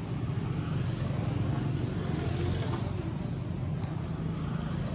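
Steady low motor rumble under a hiss of background noise.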